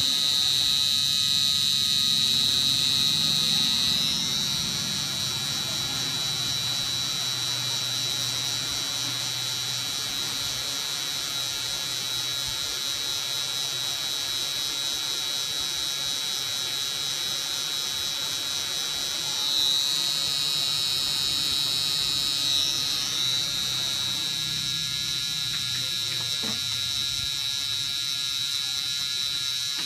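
Permanent-makeup tattoo machine pen buzzing steadily with a high whine, a little louder in the first few seconds and again about twenty seconds in.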